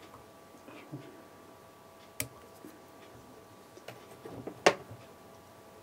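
Small metal clicks of fly-tying scissors and tools handled at the vise: a sharp click about two seconds in, a louder one near the end, and a few softer ticks between, over a faint steady hum.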